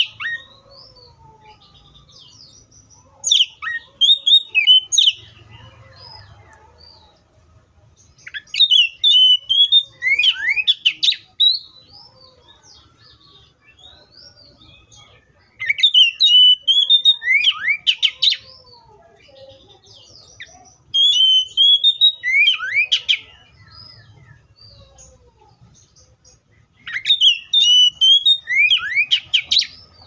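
Oriental magpie-robin singing in five bursts of two to three seconds each. Each burst is a run of loud whistled notes with quick rising and falling sweeps, and the bursts are separated by pauses of a few seconds.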